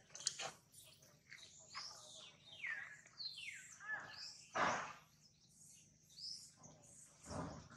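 Animal calls: many short, high chirps, each falling in pitch, overlapping one another, with two louder rough calls about four and a half and seven and a half seconds in.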